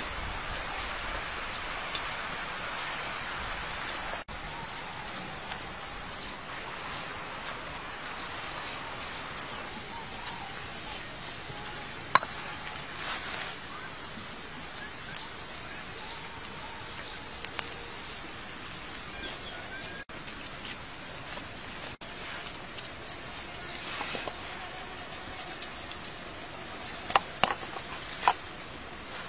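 Steady outdoor background noise with scattered faint clicks; near the end, several sharp knocks of a pestle pounding in a mortar.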